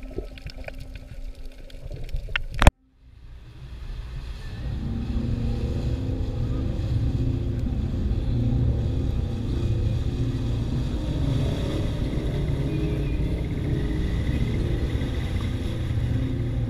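The sound through the camera's underwater housing ends with a sharp click and a moment of silence about three seconds in. After that, a motor boat's engine runs steadily with a low rumble, along with the wash of the hull on open water.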